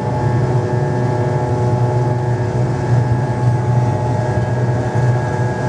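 VARIG McDonnell Douglas DC-10's jet engines running at high power, a steady drone with a strong low hum and several steady tones above it.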